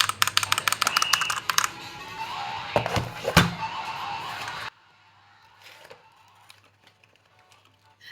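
EVOFOX Katana S Mini mechanical keyboard being typed on: a rapid run of key clicks, then slower keystrokes with two louder clacks about three seconds in. It stops abruptly a little before halfway through, leaving only faint background.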